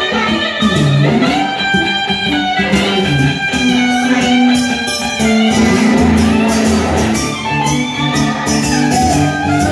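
Live blues instrumental break with no singing: an acoustic guitar and a Fender Stratocaster electric guitar playing together, the lead notes gliding in pitch.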